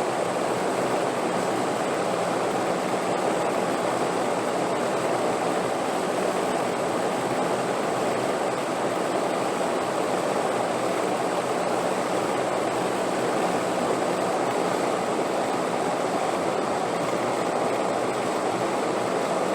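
Steady wind noise, an even rushing with no gusts or breaks, with a faint steady high-pitched tone above it.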